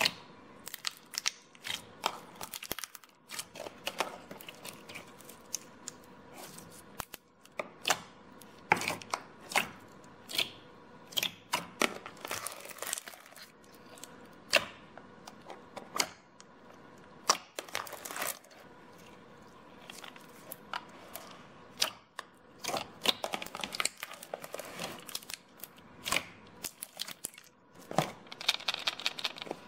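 Large mass of clear glue slime being pressed, poked and pulled by hand, giving irregular sticky clicks and pops as air bubbles in it burst. A denser crackling near the end as it is lifted and stretched.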